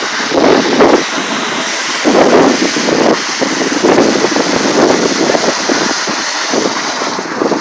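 Water rushing from a burst water main: a steady hiss with uneven surges.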